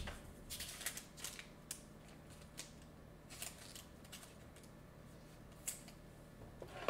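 Trading cards being handled and set down on a tabletop: a few light clicks and rustles, most of them in the first two seconds, then two more spaced out later.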